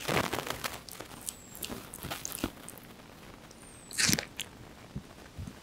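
A monkey biting into and chewing a piece of watermelon: a wet crunch at the start, small clicks of chewing, then another loud crunching bite about four seconds in.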